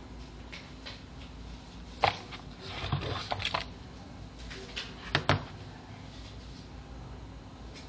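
Phone packaging and its contents handled on a table during an unboxing: a few sharp clicks and knocks, one about two seconds in, a short cluster around three seconds and a quick pair just after five seconds.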